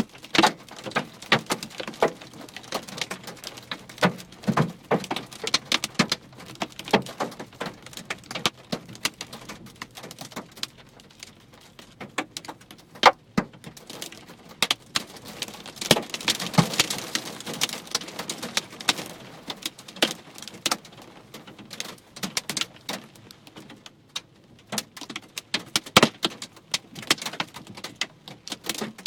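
Hailstones striking hard surfaces in a dense, irregular stream of sharp clicks and knocks, some louder hits standing out, thickest about halfway through and again near the end.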